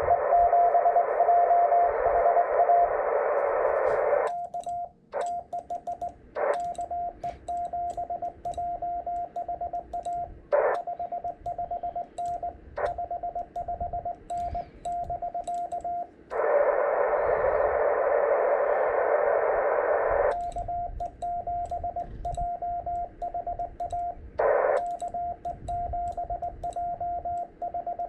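Morse code (CW) on a ham radio transceiver on the 18 MHz band: a steady tone of about 700 Hz keyed on and off in dots and dashes. Two stretches of radio hiss fill the audio band, one for the first four seconds or so and one for about four seconds past the middle, with short hiss blips and faint clicks in between.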